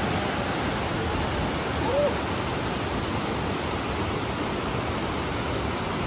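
Waterfall water rushing steadily as it cascades down sloping rock slabs into a pool.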